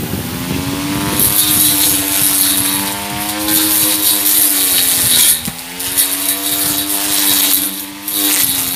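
Homemade electric grass trimmer, a DC 775 motor run at 24 volts spinning a steel-plate blade, cutting through grass and weeds. Its steady high whine carries the hiss and rattle of grass being cut. The pitch sags sharply about five seconds in and again near the end as the blade takes a load, then picks back up.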